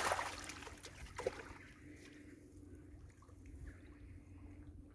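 Water splashing and pouring off a mesh keepnet as it is lifted in shallow river water, fading away after about a second and a half.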